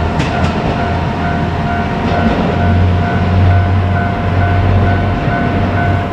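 JR Kyushu KiHa 200 diesel railcar running past a level crossing, its engine rumbling and swelling about halfway through, with a few sharp wheel clicks over rail joints near the start. A level-crossing bell rings steadily about twice a second throughout.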